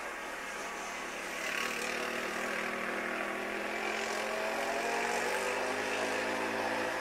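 Small engine of a coursing lure machine running steadily. It revs up about a second and a half in and holds at the higher speed while it pulls the lure.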